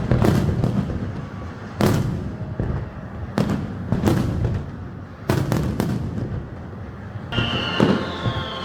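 Fireworks shells bursting in a ragged series of sharp bangs, some in quick clusters, each followed by a rumbling echo. Near the end a high tone slides slowly downward.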